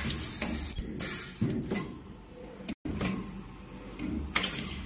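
Automatic rotary-table ultrasonic plastic welder cycling through ABS bottle caps: repeated short hisses of air from its pneumatic actuators, mixed with mechanical clunks as the table and arms move, about one or two a second.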